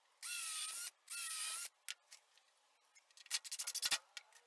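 DeWalt cordless drill with a countersink bit boring two holes into a 2x4, two short whirring bursts of about half a second each, the motor's pitch dipping as the bit bites and recovering. About three seconds in comes a quick run of clicks ending in a knock.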